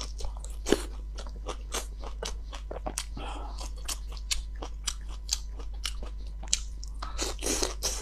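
Crunching and chewing of raw leafy greens and fern shoots: a steady string of crisp snaps and bites, with one louder snap about a second in.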